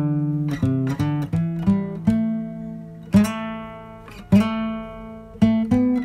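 Background music on acoustic guitar: picked notes that ring and fade, coming quickly at first and then slower and longer-held in the middle.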